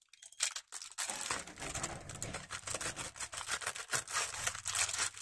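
Tissue paper crinkling and rustling as a small cutter blade slits through it and its tape: a dense, continuous run of crackles starting about half a second in.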